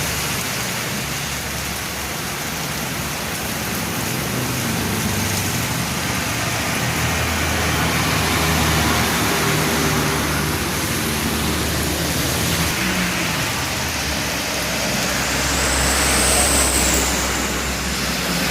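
Downpour hiss with a motor vehicle engine running and road traffic in the rain.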